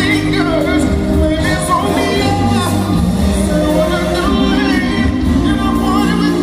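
Live pop music: a band with guitars and drums backing several singers, heard from among the audience in a large hall.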